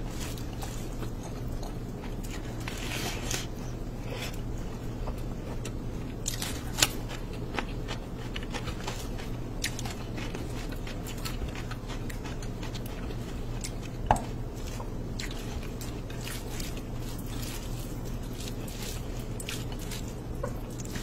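A bare hand squishing and mixing rice with curry gravy on a plate: soft wet squelches and many small clicks. Two sharper clicks stand out, about 7 and 14 seconds in.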